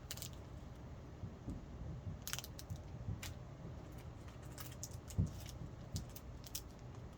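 Trading card packs and cards being handled: scattered crinkles and clicks of wrappers and cardboard, over a low steady hum.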